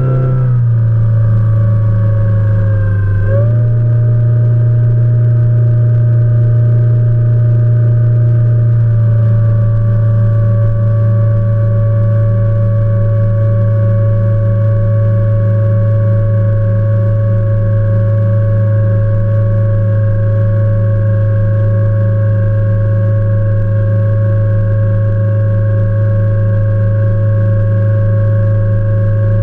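Outboard motor of a fishing boat running under way. Its pitch drops in the first second, dips briefly about three seconds in and picks back up, then settles a little lower and runs steady.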